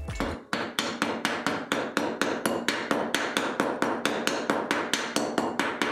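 Rapid, even taps of a screwdriver's plastic handle striking the end of a steel rod, about five or six knocks a second, used as a makeshift hammer.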